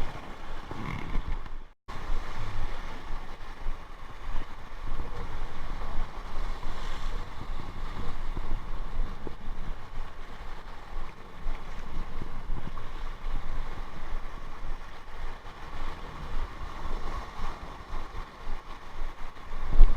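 Wind buffeting the microphone over the wash of a rough sea breaking on rocks, rising and falling in gusts. The sound cuts out completely for a moment about two seconds in.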